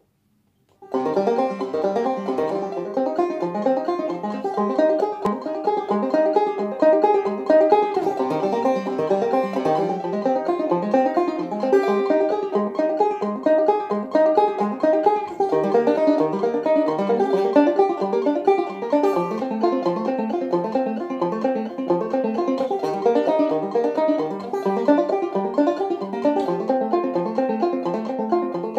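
Five-string banjo played clawhammer style: a steady, unbroken run of plucked arpeggios, starting about a second in.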